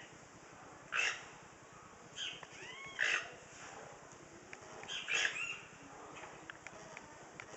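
Toucans giving hoarse, grunting calls, four or five separate calls spaced a second or two apart, with a quieter stretch between them.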